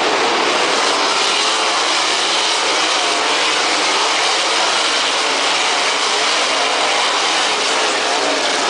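A pack of World of Outlaws winged sprint cars, their methanol-burning 410 V8s running together as the field goes past at speed, a loud, steady, dense wall of engine noise.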